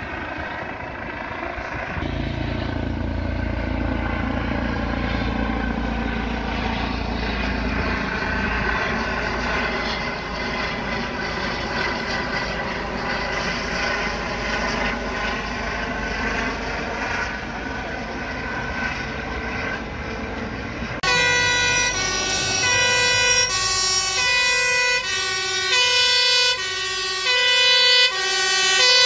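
Eurocopter EC135 trauma helicopter flying overhead, a steady rotor and turbine drone whose pitch slowly bends as it circles. About two-thirds of the way through it is replaced by a fire engine's two-tone siren alternating high and low, loud and growing louder as the engine approaches.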